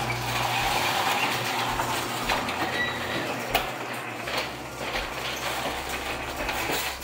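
Sectional garage door running down its tracks under its electric opener: a steady rumble with rattling and clicking from the rollers, which stops near the end. The door only closes fully when helped down by hand, which the owner puts down to worn rollers that need lubricating.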